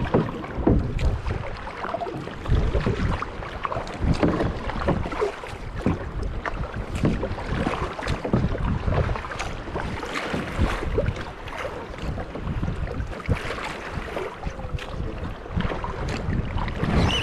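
Kayak paddle strokes splashing and choppy waves slapping against a sit-on-top kayak's hull, with wind buffeting the microphone as a low rumble.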